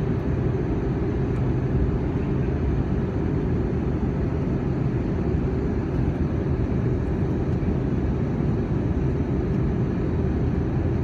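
Steady low rumble of engines and airflow inside an airliner's cabin, unchanging throughout.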